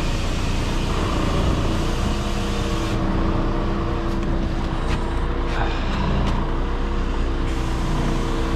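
Crane truck's engine running at a steady speed, a constant hum with a low rumble under it, with a couple of faint clicks about five seconds in.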